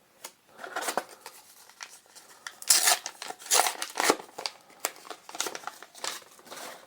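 Plastic booster pack wrapper crinkling and tearing as it is opened, with irregular crackles and rustles.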